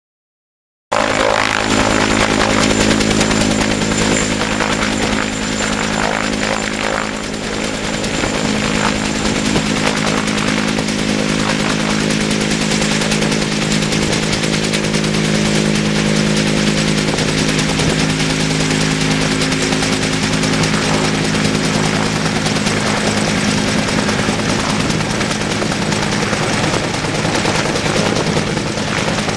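Helicopter hovering with a load slung on a long line, its rotor and engine running steadily. The sound cuts in suddenly about a second in.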